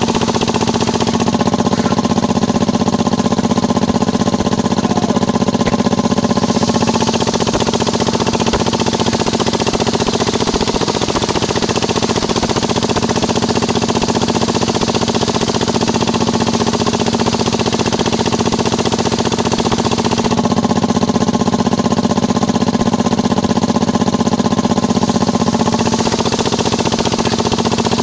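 Engine-driven circular saw of a small sawmill running steadily, while waru timber is ripped into battens. The sound grows brighter and fuller for several seconds about a second in, and again about twenty seconds in.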